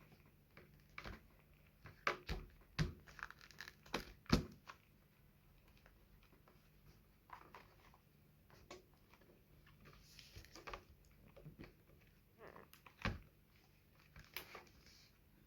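Handling of a smartphone and its plastic case: scattered faint taps and clicks, a few close together in the first few seconds and one near the end, with a brief soft rustle in the middle.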